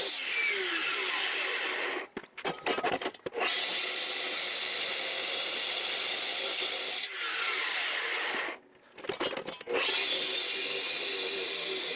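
A power tool running in long stretches, stopping twice for about a second with a few knocks in each pause before it starts again.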